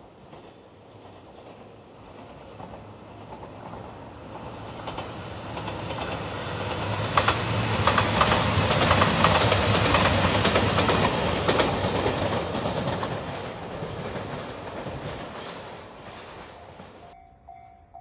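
JR Shikoku 2700 series diesel train approaching, passing close by with its wheels clattering over the rail joints, then fading away. Near the end a level crossing bell rings over and over.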